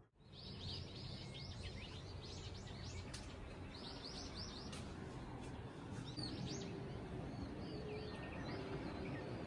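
Birds chirping in quick runs of short high notes, busiest in the first few seconds and sparser later, over a steady low outdoor background rumble.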